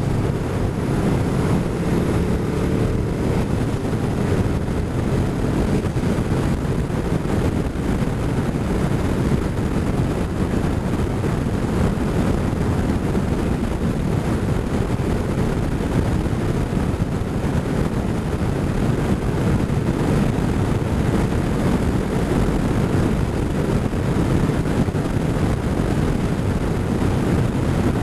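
Motorcycle engine running steadily at cruising speed, buried in a constant rush of wind on the bike-mounted camera's microphone.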